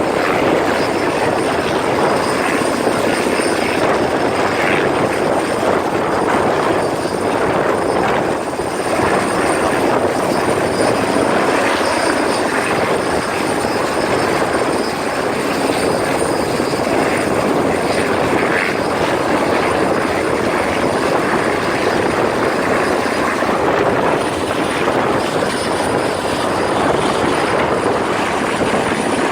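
Helicopter running close by, a loud, steady rotor and engine noise with a thin, steady high whine above it.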